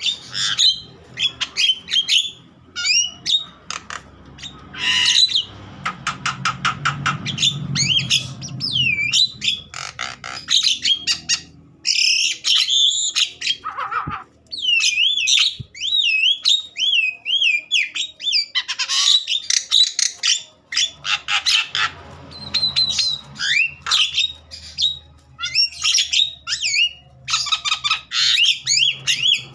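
Javan myna calling in an agitated, fired-up state: quick runs of harsh rattling chatter mixed with sliding, wavering whistled notes, coming in rapid bursts.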